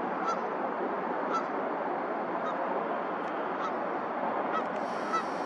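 Short, high honking bird calls repeating about once a second, irregularly, over a steady hiss of background noise.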